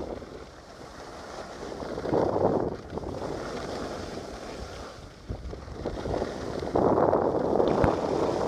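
Skis sliding and scraping over packed snow during a downhill run, with wind rushing over the phone's microphone; the noise swells twice, about two seconds in and again near the end.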